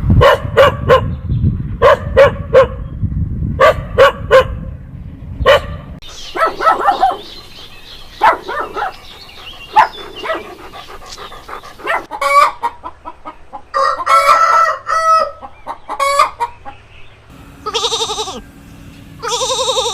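Chickens clucking in quick runs of short calls, then a rooster crowing, with the recording changing abruptly between separate takes; a low rumble sits under the first few seconds.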